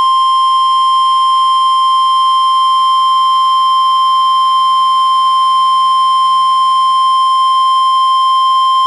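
NOAA Weather Radio warning alarm tone: a single loud, steady tone that cuts off sharply at the end. It marks the start of a warning broadcast, here a severe thunderstorm warning.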